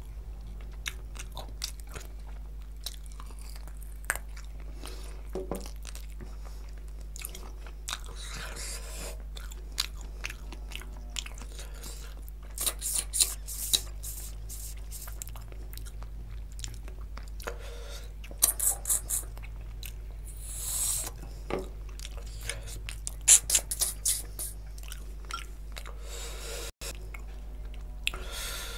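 Close-miked chewing of mutton curry with bhature eaten by hand: wet mouth clicks throughout, with several clusters of louder, quick chewing noises in the middle and later part.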